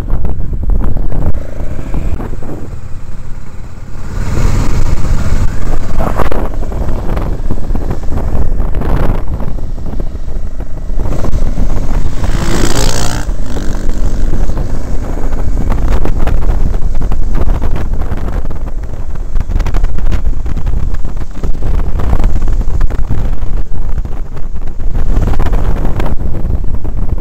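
Motorcycle being ridden, its engine running steadily under loud wind rushing over the helmet-mounted microphone, with a louder rush of wind about halfway through.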